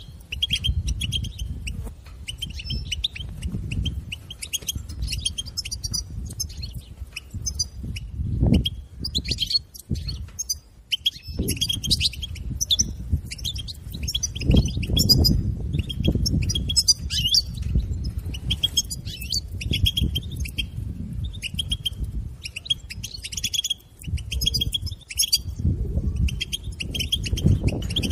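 European goldfinch giving its rapid stuttering chatter, the 'betbeta' call used to stimulate caged goldfinches to sing. It comes as quick runs of dry, clicking chirps with short pauses, over a low rumbling noise that swells and fades.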